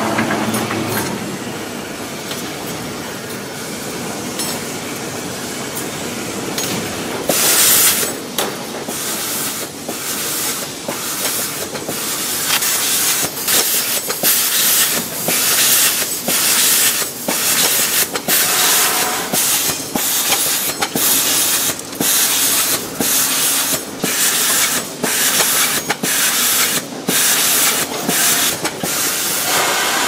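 Factory machinery in an aluminium condenser-tube assembly line: steady mechanical noise, then from about seven seconds in a regular series of short, sharp air hisses, about one a second, from pneumatic actuators venting.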